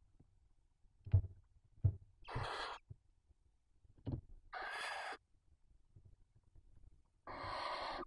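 Barn owl chicks giving their hissing, snore-like begging calls: three breathy hisses of about half a second each, roughly two seconds apart. A few short, sharp knocks come in between, the loudest about a second in.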